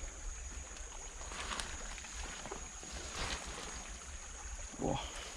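Slow footsteps through swampy mud and matted vegetation, a few soft steps about a second and a half apart, over a steady high insect drone. A brief rising call near the end.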